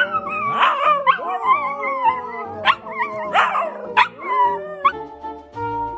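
A dog howling and whining in wavering, rising and falling tones, with a few short yips. About five seconds in it gives way to background music.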